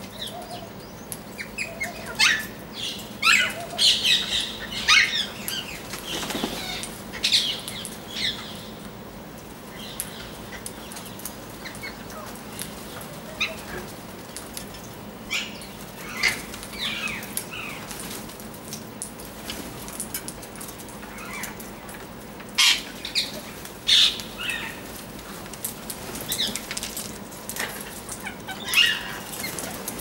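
Rose-ringed parakeets giving short, sharp screeching calls in scattered clusters, with wings flapping as birds fly in and land.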